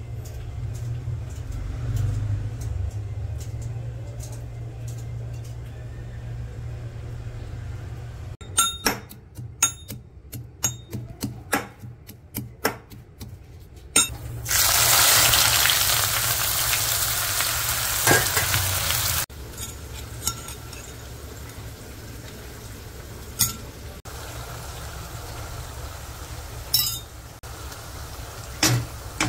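Food frying in hot oil in a pan, with a quick run of metal clinks from a spoon against the pan about nine seconds in. Then a loud sizzle for about five seconds that cuts off suddenly, followed by a quieter sizzle with occasional stirring clinks, over a low steady hum.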